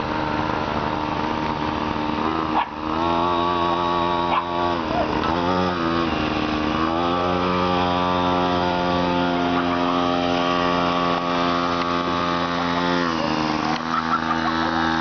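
Pocket bike's small petrol engine running as it is ridden. Its pitch climbs about two and a half seconds in, wavers up and down around five seconds, holds steady for several seconds, then falls away near the end.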